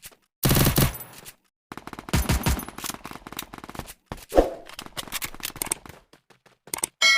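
Machine-gun fire sound effect: several rapid bursts of shots with short gaps between them. A ringing metallic ding starts right at the end.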